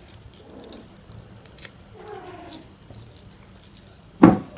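Faint crackling clicks as a tough lime half is squeezed and twisted by hand over a glass pitcher, with a faint, short, falling cry about two seconds in and one dull thump near the end, the loudest sound.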